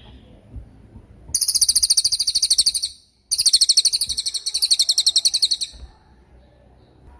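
Cililin songbird singing two long, very high, rapid trills, the first starting about a second in and the second following after a brief break.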